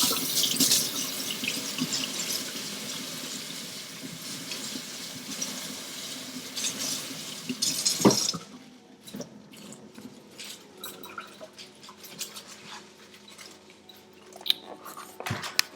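Kitchen tap running while kale leaves are rinsed under it, shut off suddenly about halfway through. A few light clicks and drips follow as the wet leaves are handled.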